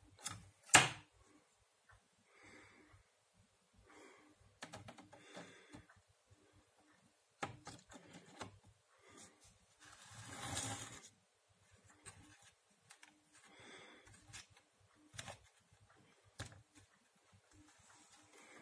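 Hand handling a 3D-printed plastic R2-D2 dome mechanism: scattered clicks and knocks of plastic parts, one sharp click about a second in, with soft rubbing and rustling in between.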